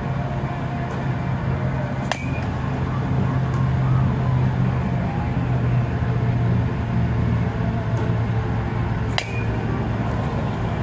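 A softball bat hits two pitched softballs, about two seconds in and again about seven seconds later, each a sharp crack with a short ring after it, over a steady low hum.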